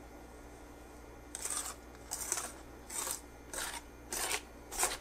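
Wire whisk stirring flour into thick chocolate batter in a stainless steel bowl: a swishing scrape against the bowl roughly every two-thirds of a second, starting about a second in.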